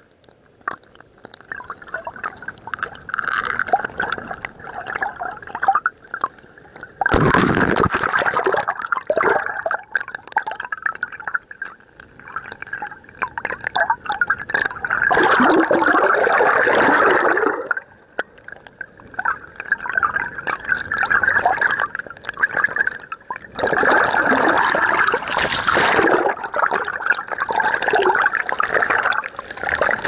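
Sea water sloshing and bubbling around an underwater camera just below the surface, with three louder surges of churning water and bubbles, each lasting two to three seconds.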